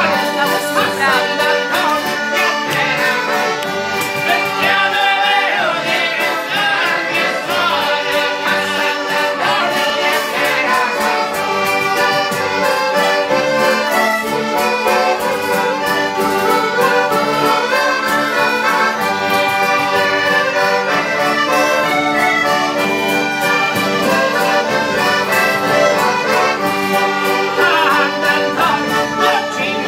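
Accordion playing a traditional folk tune, with voices singing over it for roughly the first ten seconds and again near the end.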